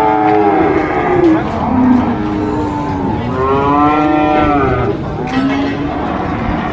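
Cattle mooing: about four long, drawn-out moos one after another, each rising and then falling in pitch.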